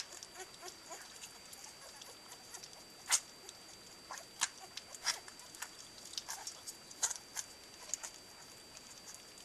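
Young Cardigan Welsh Corgi puppies lapping and smacking at food in a shared feeding bowl, at their first meal: irregular wet clicks and smacks, a few louder than the rest.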